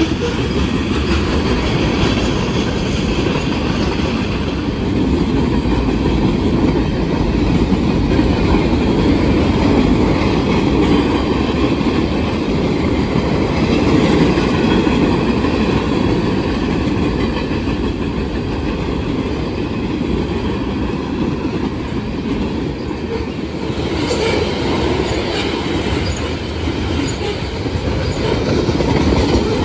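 Freight train rolling past: a steady, loud rumble of railcar wheels on the rails, with no pause in the passing cars.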